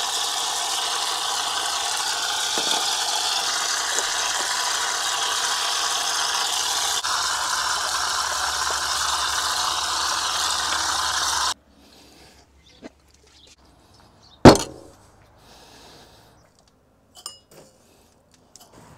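Water running from a tap and splashing over a raw bull's head into a pan as it is rinsed, a steady rush that cuts off abruptly about eleven seconds in. After a quiet stretch comes one sharp, loud knock, the loudest sound, then a few faint clicks.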